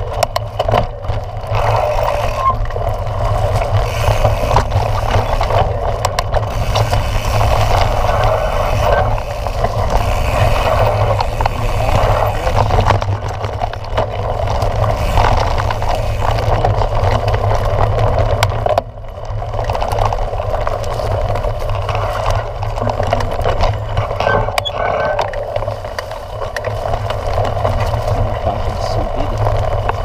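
Mountain bike riding fast over a dirt forest singletrack, heard through a handlebar-mounted camera: a steady rumble of tyres on the trail with rattling and knocks from the bike over bumps. The loudness drops briefly about two-thirds of the way through.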